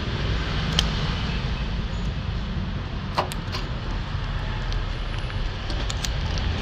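A few light, sharp clicks and taps of small objects being handled, over a steady low background rumble.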